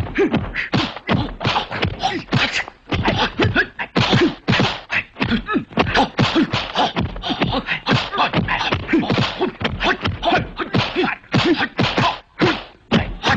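Kung fu fight sound effects: a rapid, unbroken run of punch and block whacks, several a second, mixed with the fighters' short shouts and grunts.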